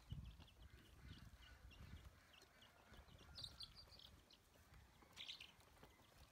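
Faint, scattered high peeping of a group of domestic ducklings, with livelier bunches of peeps about three and a half seconds in and again about five seconds in, over soft low thumps.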